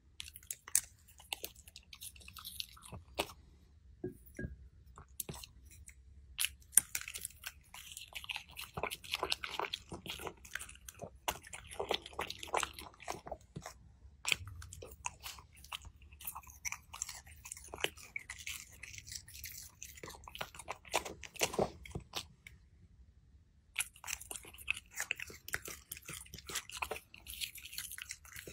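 Small dog chewing food, a quick run of many short, crisp crunches and bites, with a pause of about a second some three quarters of the way through.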